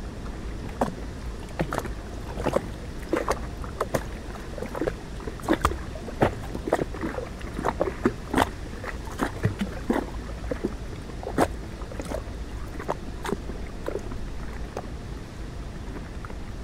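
Canal water lapping, with irregular small slaps and clicks that come thickest in the middle and thin out near the end, over a steady low rumble.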